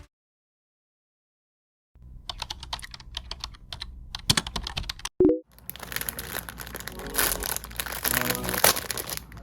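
A run of sharp clicks and taps, a brief loud tone just past the halfway point, then dense crinkling and crackling as plastic packaging is handled during an unboxing.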